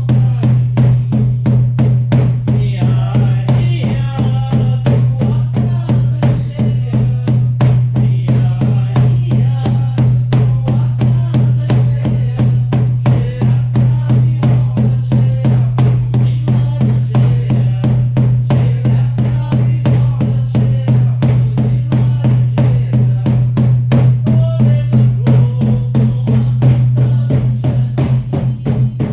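Shamanic frame drums beaten in a steady, fast, even rhythm of about four strokes a second, their deep tone ringing on between strokes.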